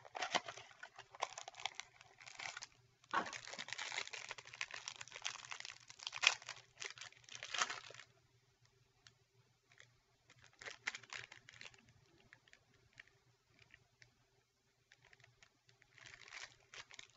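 Trading card pack wrapper crinkling as it is handled and torn open, in spells through the first eight seconds, again a little after ten seconds and near the end, with quieter gaps between.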